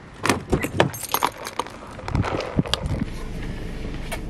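Keys jangling with a quick run of clicks and knocks, then a car's steady low rumble from about two seconds in.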